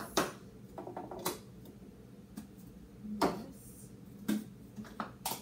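Plastic children's sippy cups and bottles knocking and clattering against each other as they are picked up and sorted in a crowded drawer. The knocks and clicks are light and come at irregular moments.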